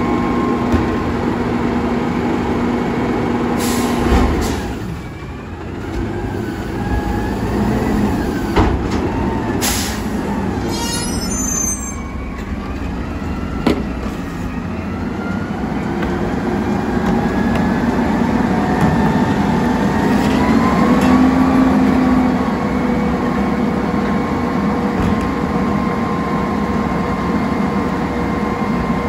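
Autocar ACX Heil Freedom front-loader garbage truck running on compressed natural gas, its engine and hydraulics whining up and down in pitch, with a few sharp knocks as trash cans are emptied into the carry can on its forks.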